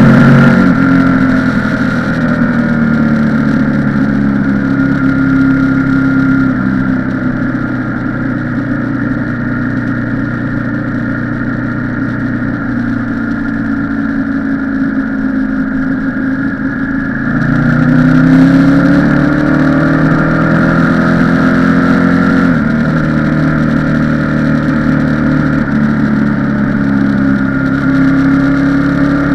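Motorcycle engine running on the road. It eases off just after the start and runs steadily at a lower pitch. About two-thirds of the way in it revs up and gets louder, then settles into steady running after a gear change.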